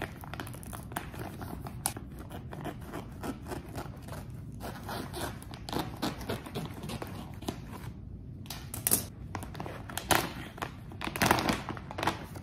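Scissors snipping through the top of a plastic bag, with the plastic crinkling and rustling as it is handled. The crinkling gets louder near the end as the bag is pulled open.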